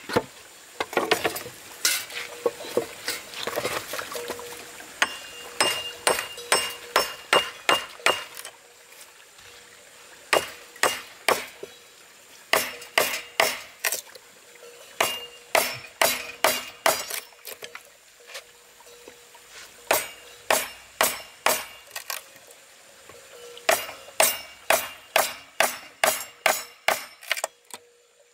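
Steel chisel struck again and again to cut a notch into a wooden plank: runs of sharp, clinking taps, a few a second, with short pauses between the runs.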